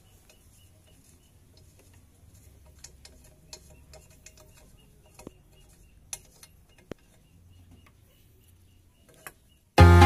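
Faint, scattered light clicks and taps of a motorcycle's rear brake caliper and hose fittings being handled and mounted on a swing arm, over a quiet background. Loud electronic music starts suddenly near the end.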